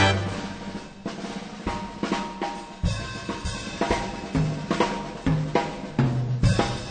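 Background jazz music in a drum-led passage: a run of snare and bass drum hits over a walking low line.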